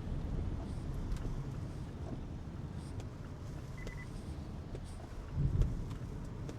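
Car interior road and engine noise while driving, a steady low rumble. A short single beep sounds about four seconds in, and a low thump comes about a second and a half later.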